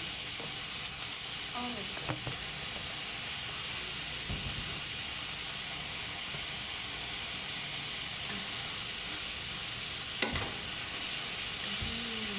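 Beef and broccoli sizzling steadily in a frying pan, with a few knocks of a utensil against the pan while stirring. The sharpest knock comes about ten seconds in.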